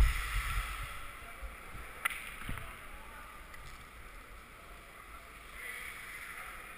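Ice rink sound picked up by a helmet camera: a steady hiss of skates gliding on the ice, with wind rumble on the microphone dying away in the first second or so and one sharp click about two seconds in.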